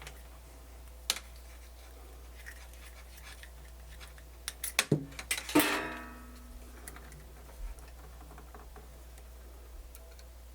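Workbench handling noise: a single click about a second in, then a quick clatter of small hard objects about five seconds in, the last one ringing briefly like metal. A low steady electrical hum lies underneath.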